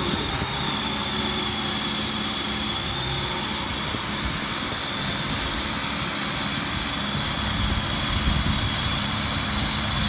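New Holland TD5.90 tractor engine running steadily while it pulls a Maschio round baler that is picking up and baling straw, the engine and baler machinery making one continuous drone.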